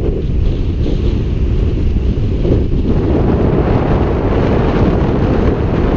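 Strong wind buffeting the camera microphone, a steady low rumble with no let-up. Surf breaking on the shore is mixed in underneath.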